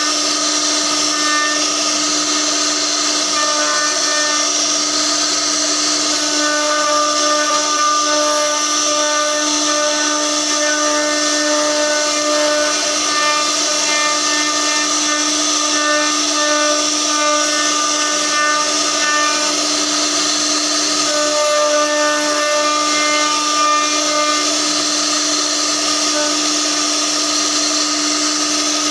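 CNC router spindle running steadily with a constant whine while its bit carves a relief pattern into a wooden door panel. Higher-pitched tones come and go over the whine.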